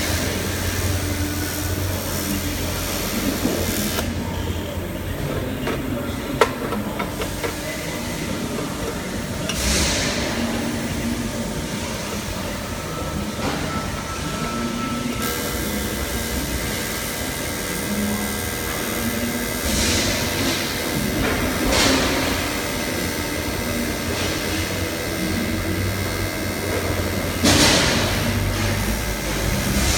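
TIG welding on aluminium: the AC arc buzzes in on-and-off stretches over a steady noisy hiss, with a few brief louder hissing swells.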